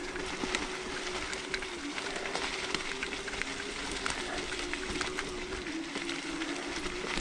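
Varla Eagle One electric scooter riding over a leaf-covered trail: its hub motors give a steady whine, with the tyres crackling over dry leaves and twigs and many small ticks and rattles.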